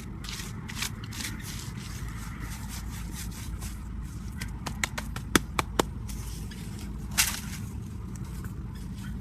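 Scraping sounds over a steady low rumble, with three sharp clicks in quick succession about five and a half seconds in and a louder scrape just after seven seconds.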